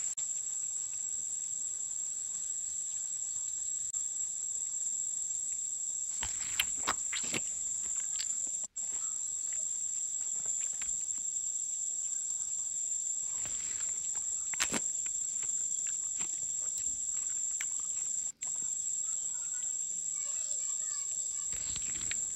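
Steady, high-pitched drone of forest insects, with a few sharp knocks of handling about six seconds in and again near the middle.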